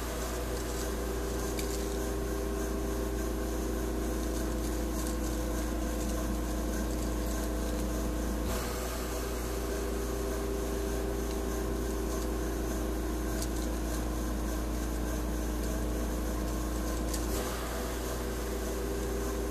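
Steady background hum: a low rumble with a few faint held tones over a hiss, and no distinct events. Its tone shifts slightly twice, about nine seconds in and near the end.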